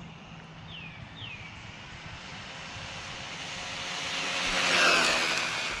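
Electric RC truck at full throttle on a top-speed run, its motor whine and tyre rush growing louder as it closes in, peaking about five seconds in, then starting to fade as it goes past.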